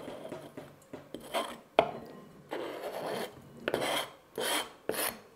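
Kitchen knife blade scraping chopped marjoram and apricot strips off a plastic cutting board into a glass bowl, in repeated short scraping strokes, with one sharp knock about two seconds in.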